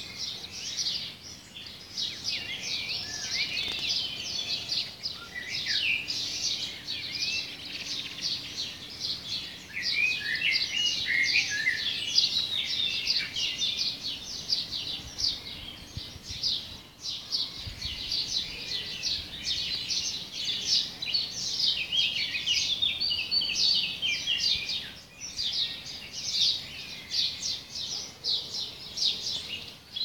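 Dawn chorus: many small birds chirping and twittering densely and without a break, overlapping calls in a high register.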